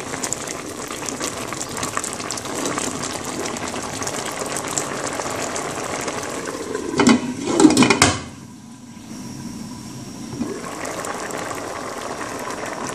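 Chopped tomatoes boiling hard in vinegar in a saucepan, a steady bubbling. About seven seconds in come two knocks, and after them the bubbling is quieter for a couple of seconds.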